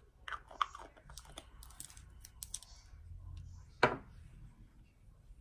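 A run of small clicks and taps as a cream jar is handled and a scoop of gel cream is taken out with long fingernails, then one louder knock about four seconds in.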